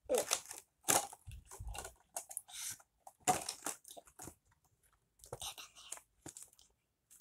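Plastic toy packaging crinkling and crunching in short, irregular bursts as it is handled and pulled open.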